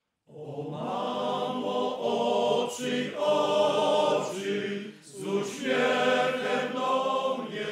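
A choir singing, entering just after the start. Its phrases break briefly about three and five seconds in.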